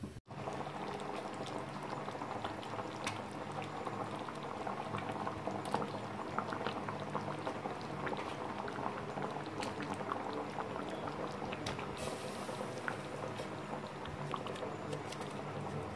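Egg curry gravy boiling in a metal pan: steady bubbling with many small pops throughout.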